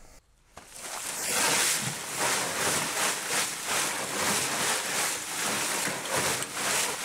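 Lumps of charcoal tumbling and clattering inside a wooden sifting tumbler with wire-mesh sides as the box is turned by hand, the pieces being sifted by size through the mesh. It is a continuous rattling rush that starts about half a second in and surges a few times a second.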